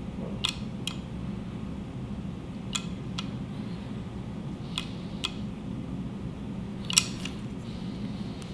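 Light, sharp handling clicks, mostly in pairs about half a second apart, four pairs in all, the loudest about seven seconds in, over a steady low room hum.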